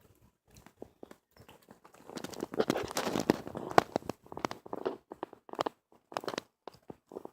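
Two dogs eating, crunching and chewing their food with quick sharp clicks. Sparse and faint at first, then busier and louder from about two seconds in.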